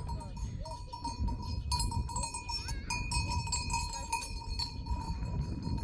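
Livestock bells ringing steadily as a flock moves, with short animal calls and a low rumbling noise underneath.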